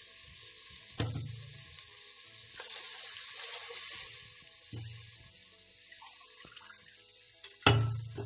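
Water poured into a hot pressure cooker of ghee-roasted broken wheat, hissing and sizzling as it hits the pot. Three sudden knocks about 1, 5 and 7.7 seconds in; the last is the loudest.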